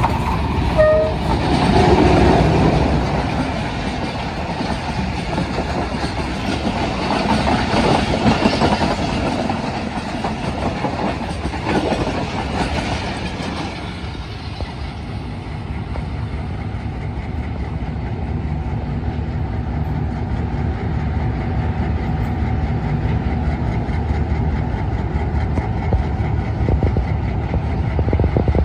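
Diesel-hauled passenger train passing close by: a short horn note about a second in, then engine rumble and wheels clattering over the rail joints as the coaches go by. After about 14 s the passing noise dies down to a steadier, quieter engine hum.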